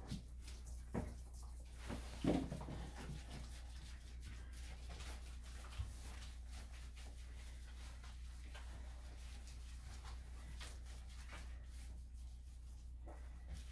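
Quiet handling sounds of a dog being washed in a bathtub with the water off: soft rubbing and a few light knocks over a low steady hum, with one louder knock about two seconds in.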